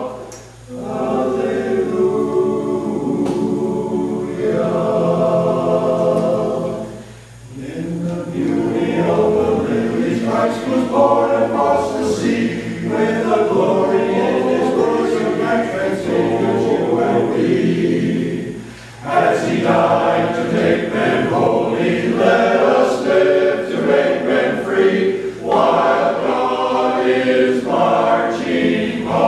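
Men's barbershop chorus singing a cappella in sustained chords, with short breaks for breath between phrases.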